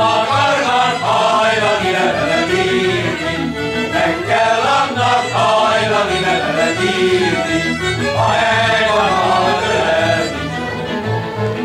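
Hungarian folk music: a men's choir singing with a string band of violins and double bass, the bass keeping a steady beat underneath.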